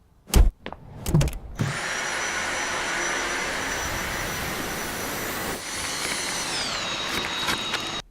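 A few short clicks, then a vacuum cleaner motor running steadily with a high whine. The whine drops in pitch near the end before the sound cuts off suddenly.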